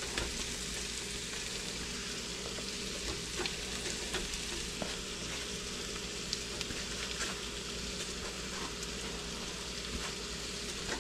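Floured chicken breast pieces frying in butter in a pan: a steady sizzle with scattered small pops.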